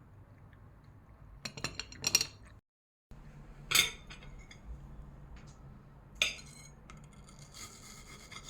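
Kitchen dishes and cutlery being handled: a quick run of clinks, then two single sharp knocks a couple of seconds apart, and a light rattle near the end.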